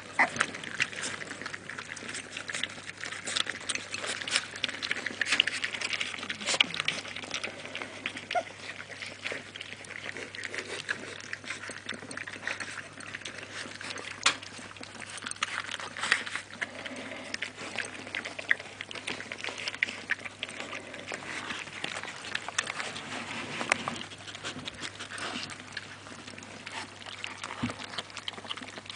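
Several American Staffordshire Terrier puppies eating dry kibble together from a glass plate: a steady, irregular run of small crunches and clicks.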